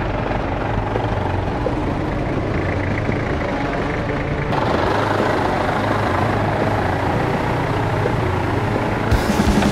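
Off-road 4x4's engine running steadily, with the sound changing about four and a half seconds in.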